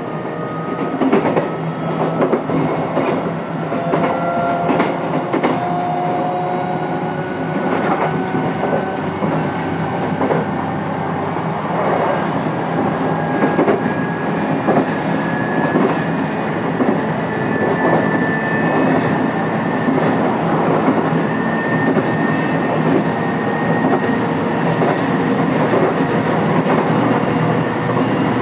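Running sound heard aboard the motor car of a JR East E129 series electric train (KuMoHa E129-9): a motor whine that rises slowly in pitch as the train gathers speed, over a steady rumble with irregular clacks of the wheels on the rails.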